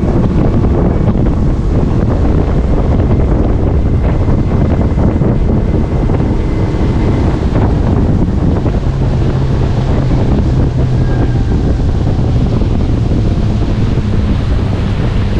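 Heavy wind buffeting the microphone over a steady low drone of a boat's motor running on the water.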